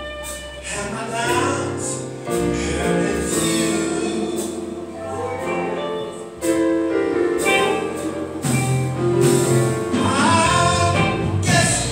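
A men's gospel chorus singing in harmony, with sustained low notes held underneath the voices.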